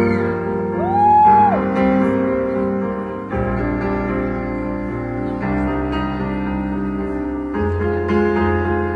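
Grand piano played live, slow sustained chords that change every two seconds or so. A single high held note rises over the piano about a second in.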